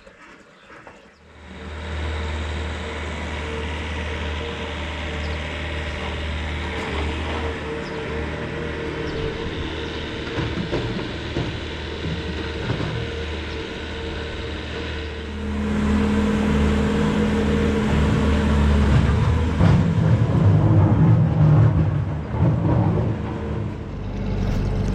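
Skid steer's diesel engine starts up about a second in and runs steadily, then revs up louder about fifteen seconds in as the machine is put to work.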